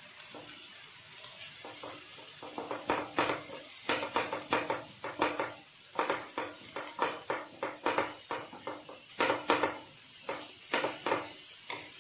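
Wooden spatula stirring and scraping diced onion and carrot in a frying pan, an irregular run of scrapes and taps, several a second, from about a second and a half in, over a light sizzle of the vegetables frying on high heat.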